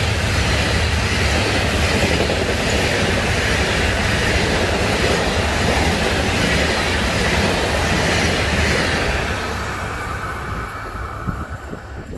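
Passenger coaches of a fast train rushing past, a loud steady rush of wheels on rail, fading from about ten seconds in as the train draws away.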